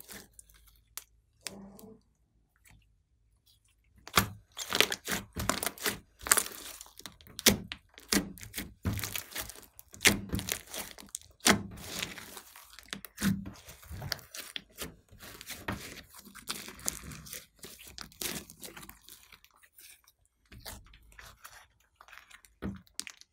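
Hands squeezing, stretching and folding a large mass of glossy slime mixed with clay, giving dense clicking and crackling sounds. There is a short lull about two seconds in before the crackling resumes.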